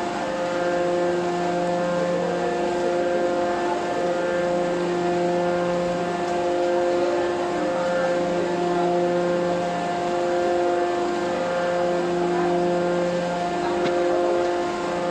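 Hydraulic press's power unit running: a steady machine hum of several even pitches that dips briefly every few seconds.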